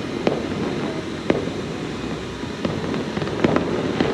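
Fireworks going off: about five sharp bangs, roughly one a second, over continuous crackling.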